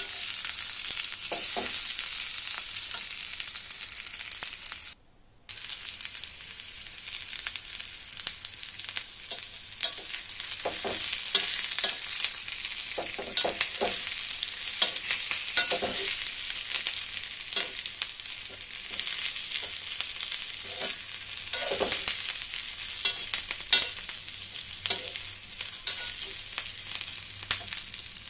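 Bitter gourd and onion pieces sizzling in oil in an iron kadai, stirred with a metal spatula that scrapes and taps against the pan. The sound drops out briefly about five seconds in.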